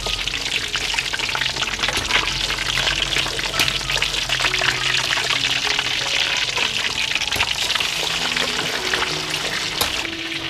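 Two whole fish frying in hot oil in a wok: a steady, dense crackling sizzle.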